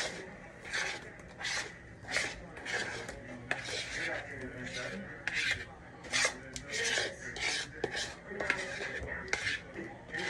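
A spoon stirring cornbread batter in a mixing bowl, in repeated scraping strokes about one and a half a second.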